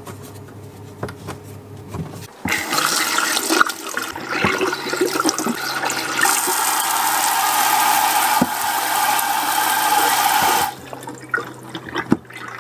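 Water rushing from a pull-out spray-head tap into a stainless steel sink. It starts a couple of seconds in, gets louder about halfway, and is shut off abruptly near the end, with a low steady hum underneath.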